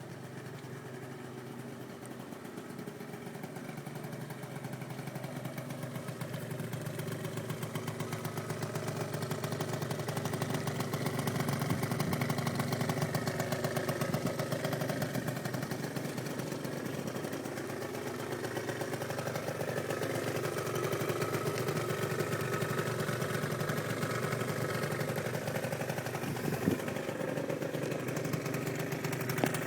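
Aprilia SR 50 two-stroke scooter engine with an aftermarket Arrow exhaust, idling steadily. It grows louder over the first dozen seconds and then holds, with one brief click near the end.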